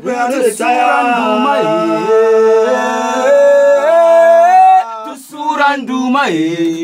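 A man singing unaccompanied, a melody of long held notes that step up and down in pitch, breaking into shorter phrases about five seconds in.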